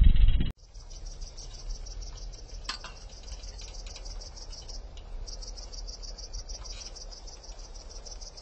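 A loud low rumble cuts off abruptly about half a second in. After it, insects chirp steadily in rapid high-pitched pulses, with a short break about halfway through and one brief bird chirp near the third second.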